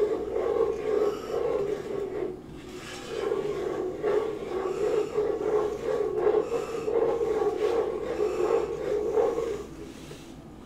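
Wooden spoon scraping and stirring around the bottom of a saucepan of cooking toffee, in repeated rasping strokes, with a short lull about two seconds in and a fade near the end.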